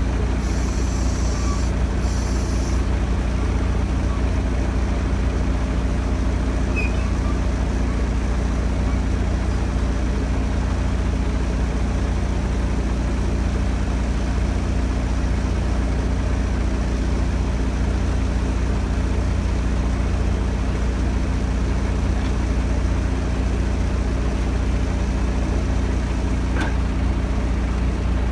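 Heavy diesel engine idling steadily. A high hiss sits over it for the first few seconds and stops about three seconds in, and there is a single sharp click near the end.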